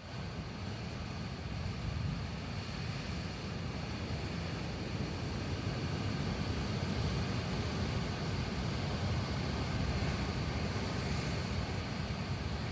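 Heavy surf breaking against sea cliffs and rocks: a steady rush of noise with a strong low rumble.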